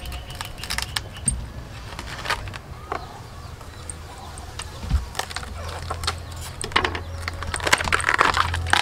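Knife cutting into a green banana tree trunk and its moist layers being split and pulled apart by hand: a series of crisp clicks and crackles, busiest near the end, over a steady low rumble.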